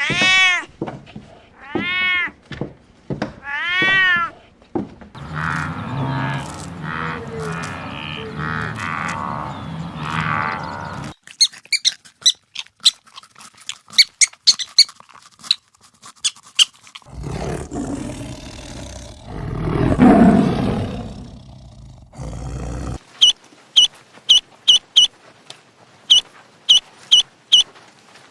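A run of different animal calls, one after another: a few arching bleat-like calls, a rough stretch, quick sharp chirps, a loud rough call that swells and fades, then short high chirps repeated about three times a second.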